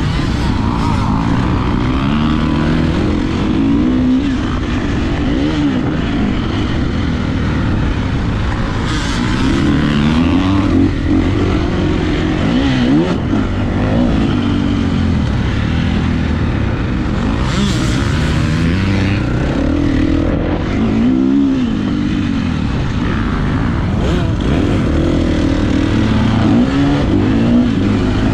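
KTM 350 SX-F single-cylinder four-stroke motocross engine heard from on the bike, revving hard, with the pitch climbing and dropping again and again as the rider works the throttle and gears around the track.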